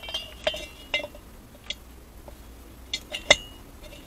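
Light metal clinks and taps, five or six of them with a brief ring, the loudest near the end, as the burner assembly of an Eberspacher diesel parking heater is handled and set back onto its combustion chamber.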